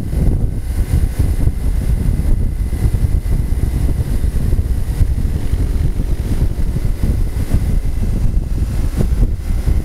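Loud, steady wind buffeting a motorcycle-mounted camera's microphone at road speed, a dense low rumble with the motorcycle's engine and tyres running underneath.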